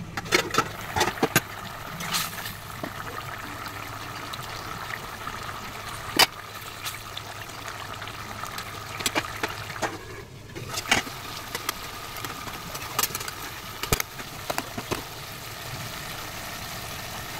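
Fish and taro curry simmering in a pot on a gas stove: a steady bubbling hiss, with scattered sharp clinks of a metal spatula and lid against the pot.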